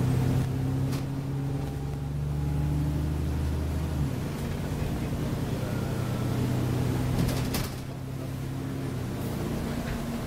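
Alexander Dennis Enviro400 double-decker bus under way, heard from inside the lower deck: a steady multi-tone drone of the diesel engine and drivetrain, whose lowest tone drops out about four seconds in, with a short burst of rattling clicks about seven seconds in.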